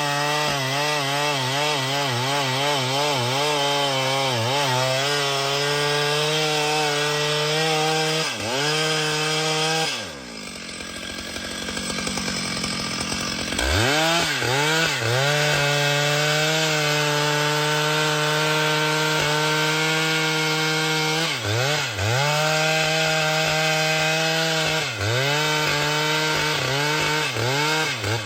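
Chainsaw cutting into a tree trunk at full throttle. Its pitch wobbles rapidly over the first few seconds, then holds steady under load. About ten seconds in it falls back to a low idle, revs up again a few seconds later and keeps cutting, with brief dips in pitch near the end.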